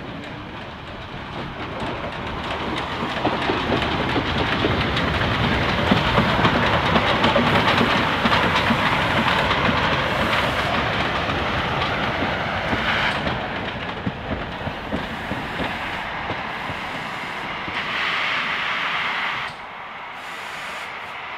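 Mallet steam tank locomotive No. 403 running past on its own, wheels clattering on the rails. It grows loud as it passes, then fades as it moves away. Near the end a burst of steam hiss cuts off suddenly.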